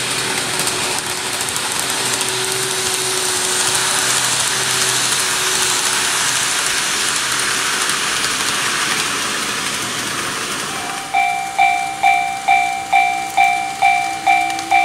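Train running noise, a steady rushing hiss that swells and then fades. About 11 seconds in, a Japanese level-crossing warning bell starts ringing at about two dings a second.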